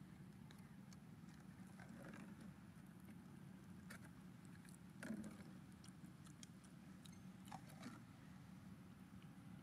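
Near quiet: faint scattered clicks and taps of a plastic water bottle handled and mouthed by macaques, the loudest about five seconds in, over a low steady hum.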